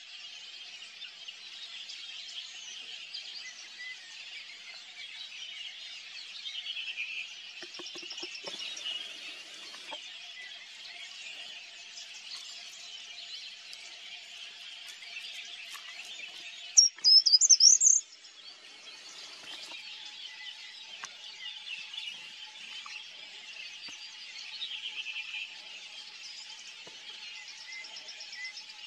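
Many birds singing and chirping together in a continuous chorus. Just past the middle, a loud, high-pitched squeal wavers up and down for about a second.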